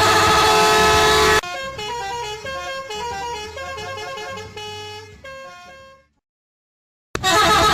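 A loud, harsh blaring sound cuts off suddenly about a second and a half in, giving way to a short tune of stepping notes that fades away. After about a second of silence there is a click, and the loud blaring sound starts again near the end.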